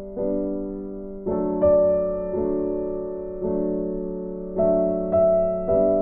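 Background piano music, with slow chords each struck and left to fade.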